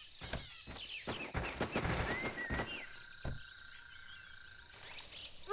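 Cartoon jungle ambience with faint bird chirps, and a run of soft scuffs and rustles ending in a short low thud about three seconds in, as the clear plastic box is set down and the Goliath tarantula scurries out onto the dirt.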